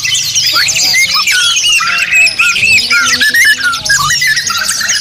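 Many caged songbirds singing at once: a dense, continuous chorus of overlapping whistles, trills and chirps.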